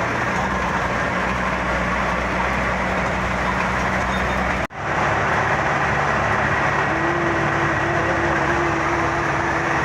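A 30-year-old Kia Ceres light truck driving, its engine and road noise running steadily. The sound drops out for an instant about halfway through, then carries on.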